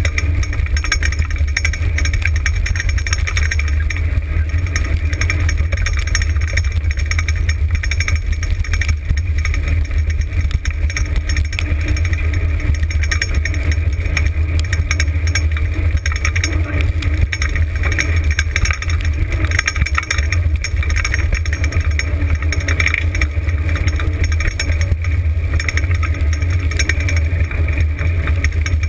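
Steady loud rumble of wind on the microphone together with a dryland dog rig rolling and rattling over a dirt track at about 26 km/h.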